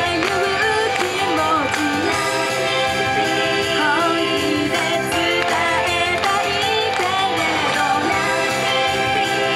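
Live J-pop idol performance: two young women singing into handheld microphones over an upbeat pop backing track.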